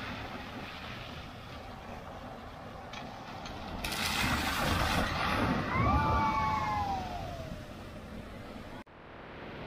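Cars driving through shallow floodwater at a road ford: tyres swishing and splashing through the water over engine noise, louder in the middle. A falling, whistle-like squeal sounds briefly about two-thirds of the way through.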